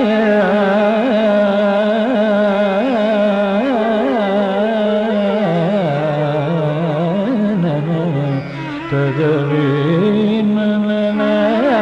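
Carnatic classical music in raga Shubhapantuvarali: one melody line sliding and oscillating in gamaka ornaments, dipping lower in the middle before climbing back.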